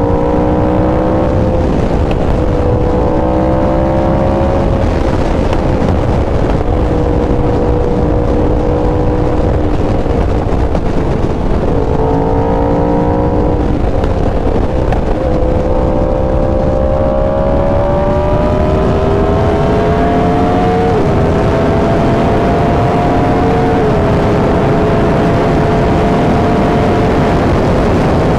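Yamaha R1's crossplane inline-four running at highway cruising speed, its note slowly rising and falling and stepping in pitch a few times, over a heavy rush of wind noise.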